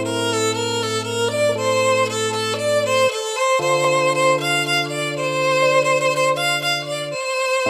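Background music: a melody on violin-like strings over a sustained bass, the bass note changing about every three and a half seconds.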